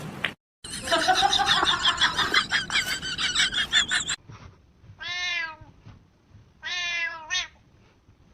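A domestic cat meowing: a few seconds of loud, dense crying, then two separate drawn-out meows, each rising and falling in pitch, about a second and a half apart.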